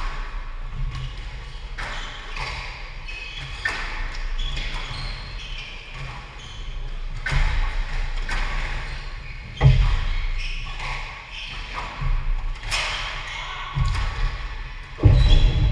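Squash rally: a squash ball struck by rackets and cracking off the court walls, with shoes squeaking and feet thudding on the wooden court floor, in a hall with a noticeable echo. The hits come irregularly, about every one to three seconds.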